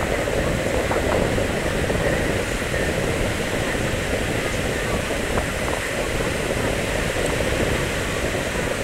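Steady murmur of a crowd of fireworks spectators over a constant rushing background noise, with no firework burst heard.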